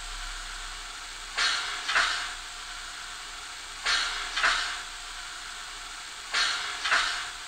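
Steam locomotive air pump sound from the sound decoder of a PIKO N-scale BR 82 tank locomotive model, played through the model's small speaker. Pairs of hissing puffs about half a second apart come three times, about every two and a half seconds, over a steady hiss.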